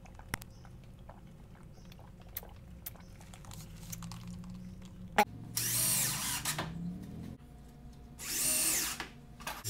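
Cordless drill driving screws into a wooden frame in two bursts of about a second each, in the second half, after a sharp click.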